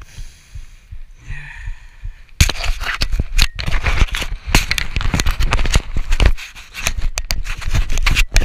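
Handling noise on a helmet-mounted action camera: after a couple of quieter seconds, loud, irregular rustling, crackling and scraping as the camera is covered and rubbed against clothing.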